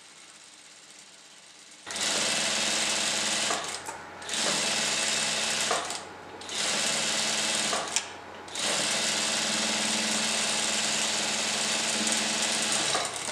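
Industrial sewing machine stitching a seam through blouse fabric, starting about two seconds in and running in four spells with three brief pauses between them.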